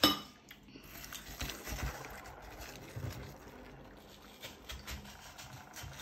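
A sharp ringing clink on a glass bowl right at the start, then faint scattered taps and scrapes of a metal spoon among chunks of watermelon.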